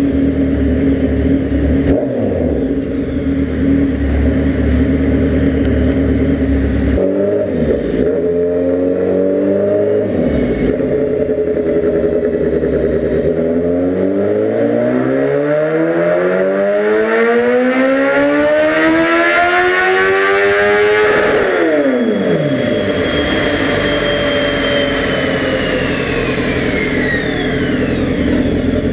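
2005 Kawasaki ZX-10R's 998 cc inline-four with a Voodoo aftermarket exhaust running on a chassis dyno. It idles with a couple of short throttle blips, then makes a wide-open-throttle pull, rising smoothly in pitch for about eight seconds. The throttle then shuts, the revs drop sharply, and a whine falls away as the bike and roller spin down.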